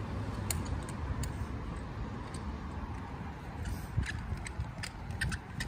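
Fire hose nozzle and couplings being handled as a rolled section of 1¾-inch hose is set into a hose load: scattered small clicks and knocks, a few in the first seconds and more of them toward the end, over a low steady rumble.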